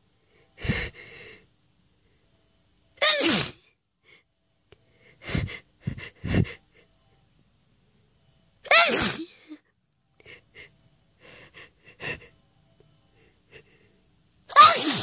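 A person sneezing loudly three times, each sneeze a sudden burst ending in a voiced cry that falls in pitch, with quicker, quieter breaths and sniffs between them: a sneezing fit.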